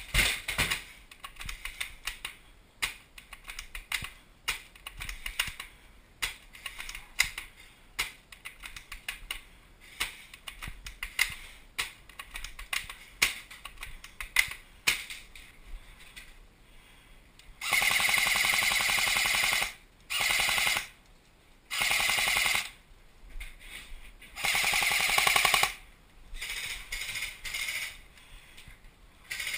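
Airsoft electric rifle firing full-auto bursts: four loud bursts starting a little past halfway, each about half a second to two seconds long, then a few shorter bursts near the end. Before them there are scattered light clicks and ticks.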